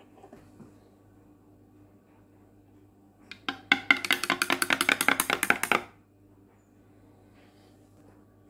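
Teaspoon stirring coffee in a ceramic mug, clinking rapidly against the sides, about ten clinks a second for some two and a half seconds, starting about three seconds in.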